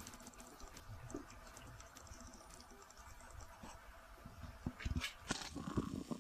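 A small puppy's paws tapping and scratching on a loose wooden board, with a few louder knocks of wood near the end.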